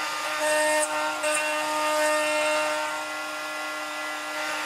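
Stepcraft M1000 CNC router's spindle running with a steady whine while its spiral bit mills joinery into plywood, with two brief bursts of cutting noise in the first second and a half.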